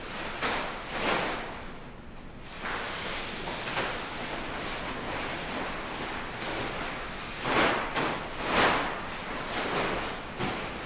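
Large fabric sculptures being swung, flapped and dragged across the floor: a continuous rustling swish with several louder whooshes, two near the start and two more past the middle.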